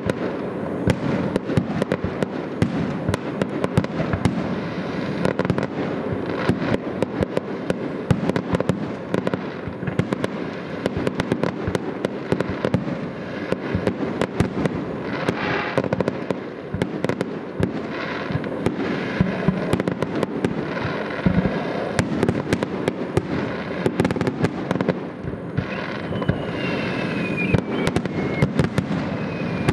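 Fireworks display in full swing: dense, continuous bangs and crackles of bursting shells, with a thin falling whistle near the end.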